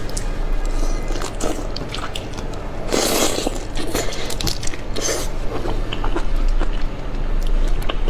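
Close-miked eating of a whole prawn: small crackles and clicks of biting into and chewing the shell and flesh, with two louder, noisier mouth sounds about three and five seconds in.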